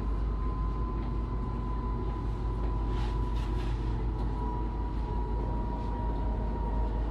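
Inside an electric S-Bahn commuter train running at speed: a steady low rumble of wheels on track with a constant whine over it.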